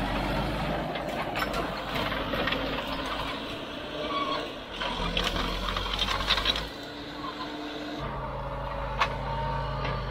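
Caterpillar D4 7U bulldozer's four-cylinder diesel engine running under load as it pushes into gorse. For about the first seven seconds it comes with crackling, snapping and clanking. After that the engine settles to a steadier hum, with one sharp click near the end.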